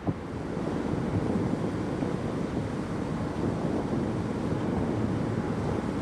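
Wind buffeting the microphone: a steady, uneven low rumble, with a short click at the very start.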